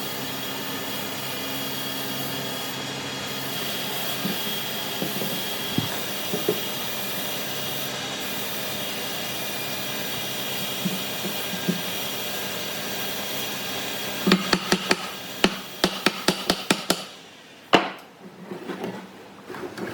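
A workshop machine runs steadily with a constant hum and hiss. Near the end comes a quick run of about ten sharp knocks on wood, then the machine stops and there is one last loud knock.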